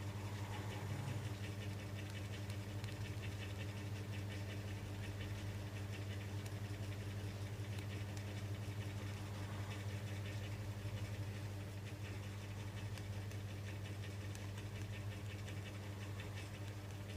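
Steady low electrical hum, with faint scratching and ticking over it.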